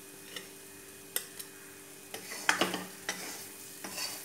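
Steel spatula scraping and tapping against an iron kadai as jackfruit pieces are stirred, a few scattered strokes with the loudest about two and a half seconds in, over a faint steady frying sizzle.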